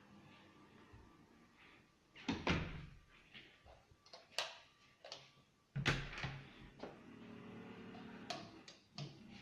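A series of knocks and clunks, about a dozen, irregularly spaced, with the loudest about two and a half and six seconds in.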